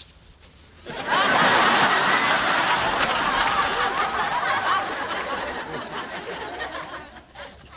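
Sitcom studio audience laughing: the laughter breaks out about a second in, is loudest at first and dies away near the end.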